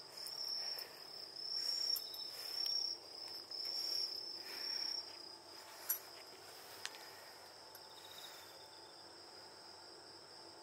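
Crickets chirping: a thin, steady high trill, broken into short phrases for the first half and then continuous. Soft rustling noises in the first half, and two faint clicks.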